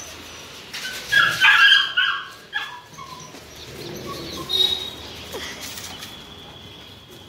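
Central Asian Shepherd (Alabai) puppies yelping in a run of short, high-pitched calls, loudest between about one and three seconds in, with another brief burst a little later.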